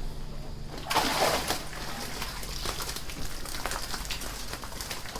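Water splashing and sloshing in uneven bursts, loudest about a second in.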